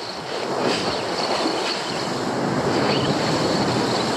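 Sea waves surging and breaking over rocks, with wind buffeting the microphone.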